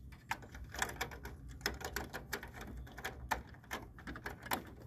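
Irregular clicks and taps of a small plastic piece being handled and pressed into place inside a photocopier's open side door, over a low steady hum.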